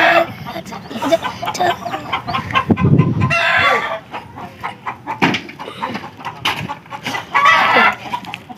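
Domestic chickens clucking with a rooster crowing, two longer calls about three and a half and seven and a half seconds in. A brief low rumble about three seconds in.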